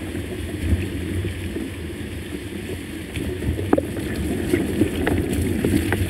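Steady low rumble of a mountain bike being ridden along a muddy single-track trail, mostly wind buffeting the bike-mounted camera's microphone, with a couple of sharp knocks from the bike about halfway through and again a second later.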